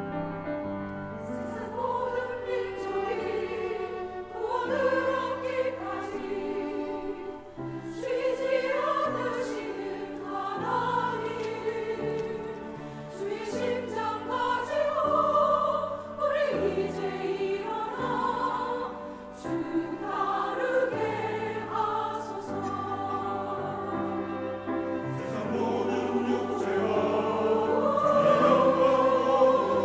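A choir singing a sacred anthem over instrumental accompaniment, with phrases that swell and a louder passage near the end.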